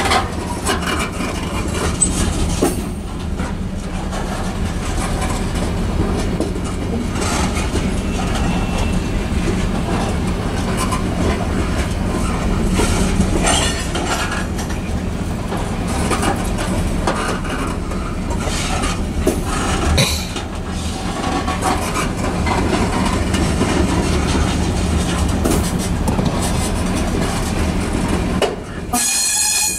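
Loaded covered hopper cars of a freight grain train rolling past: a steady rumble, with the wheels clicking and clattering over the rail joints. A brief high-pitched squeal comes near the end.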